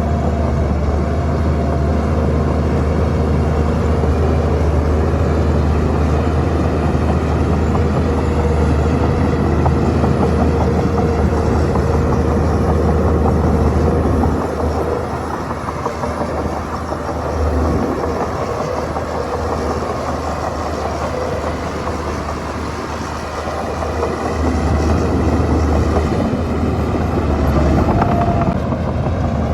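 Shantui bulldozer's diesel engine running steadily under load. It eases off about halfway through and builds up again near the end.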